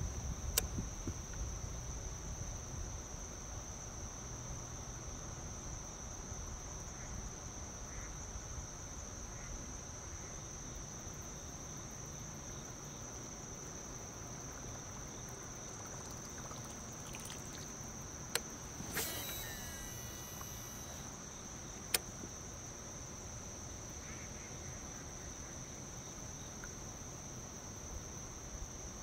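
A steady, high-pitched insect drone that holds one unbroken tone, with a few sharp clicks standing out, the loudest near three-quarters through.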